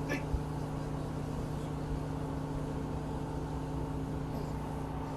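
Boat engine running steadily at idle, a low even hum with a few fixed tones that does not change.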